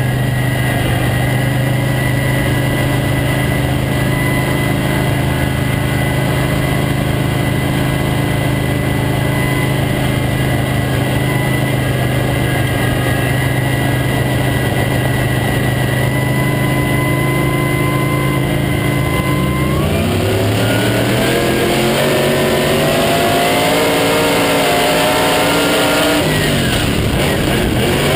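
Late model stock car's V8 engine heard from inside the cockpit, holding a steady pitch for about twenty seconds, then revving up with the pitch climbing and wavering; it dips briefly near the end before rising again.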